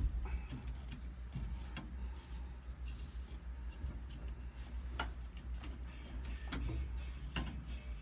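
A few light clicks and taps from turn-signal wiring and parts being handled on the steering column, over a steady low hum.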